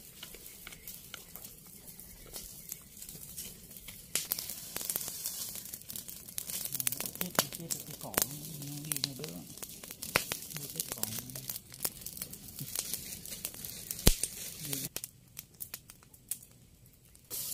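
A pile of dry brush and branches burning, crackling with many sharp pops. The crackling grows louder about four seconds in, and there is one especially loud crack near the end.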